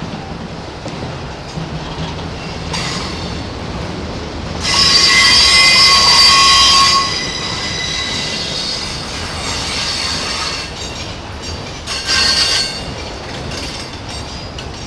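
Autorack freight cars rolling past with a steady rumble of wheels on rail, and wheel flange squeal from the curve: a loud, high, multi-toned squeal about five seconds in lasting a couple of seconds, and a shorter one near twelve seconds.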